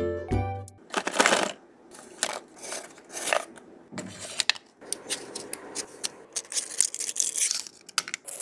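A short cheerful jingle ends in the first second. Then comes the rustle and crinkle of a handmade paper box and folded paper pieces being handled, with a paper slip pulled out of a slot, in irregular scratchy bursts with small clicks.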